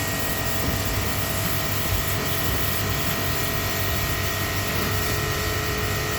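Service pump (pressure washer) running steadily, a continuous hiss with a faint steady whine, used to wash a split air conditioner.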